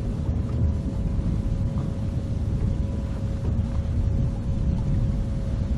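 Boat motor running steadily with a constant whine, and wind buffeting the microphone underneath.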